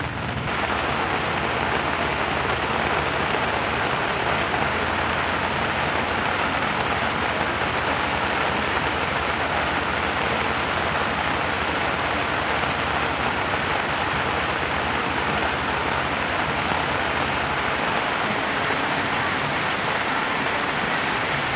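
Heavy rain pouring steadily onto a paved street, a constant even wash of noise with no letting up.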